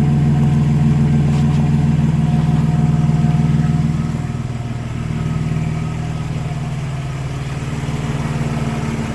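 BMW 530i's 3.0-litre M54 inline-six running steadily at idle through an exhaust with the muffler deleted, giving a deep, steady exhaust note. The note becomes somewhat quieter about four seconds in and then holds steady.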